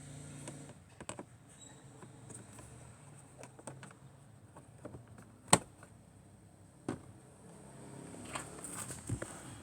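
Light clicks and rustling of hard plastic parts being handled while the cabin air filter and its housing behind the glovebox are worked, with one sharp click about five and a half seconds in.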